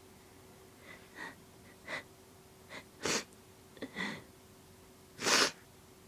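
A woman's allergy sneeze: several short, catching gasps over a few seconds, then one loud sneeze about five seconds in.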